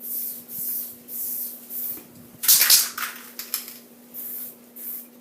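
Aerosol spray-paint can sprayed in a string of short hissing spurts, the longest and loudest about halfway through.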